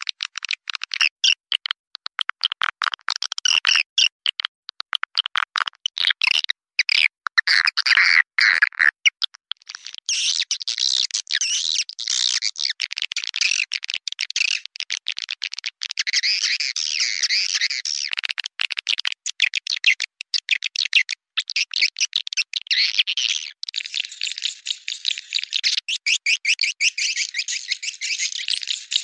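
Swiftlet calling recording: dense, rapid chittering twitters of swiftlets, the call played to lure swiftlets into a nesting house. The chatter comes in broken runs at first, then turns into a denser, almost unbroken twittering about ten seconds in.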